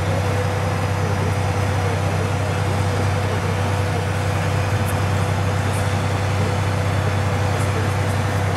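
Diesel engine of a tank-chassis bridge layer running steadily under load as its hydraulics unfold the scissor bridge: a constant low drone with a thin steady whine above it.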